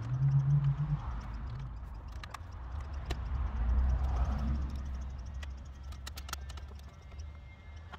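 Scattered light clicks and knocks of hard plastic as an AC control panel is pushed and worked into place in a Honda Civic's centre console, over low rumbling handling noise.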